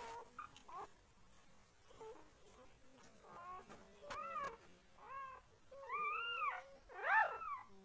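Newborn German shorthaired pointer puppies squealing and whining at the teat. A string of short, high, arching cries comes more often and louder from about three seconds in, with the loudest cry near the end.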